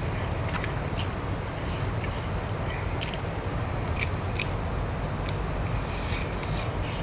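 A person chewing a mouthful of stir-fried chicken sundae close to the microphone: wet mouth clicks and smacks every second or so over a steady low hum.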